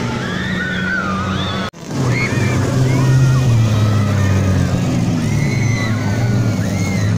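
A vehicle engine running steadily, with people's voices calling over it, and a brief drop-out about two seconds in.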